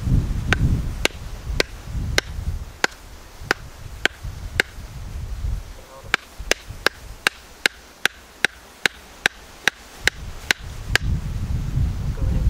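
Wooden mallet striking a splitting tool set in the top of a log, a steady run of sharp knocks about two a second, to split the log.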